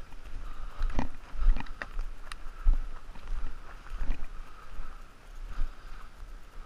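Footsteps and brushing through heather and low scrub as a person walks, in irregular rustling strokes over a low rumble on the microphone.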